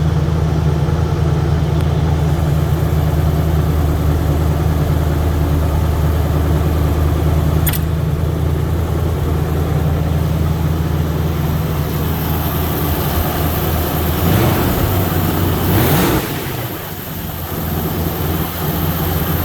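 1976 Ford Bronco engine running steadily, with a sharp click about a third of the way in and a brief rev near the end before it settles back. The transmission is engaged but the wheels won't turn under power, which is put down to shift linkage issues.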